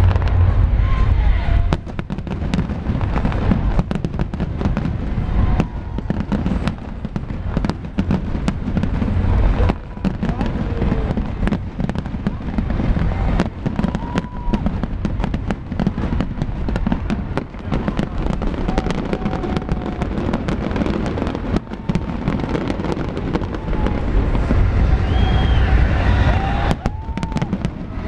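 Large fireworks display: a continuous barrage of bangs and crackles over deep booming shell bursts, heaviest at the start and again near the end.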